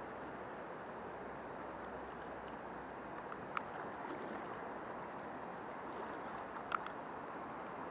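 Shallow river running steadily over a stony riffle, with two short sharp clicks, one about halfway through and one near the end.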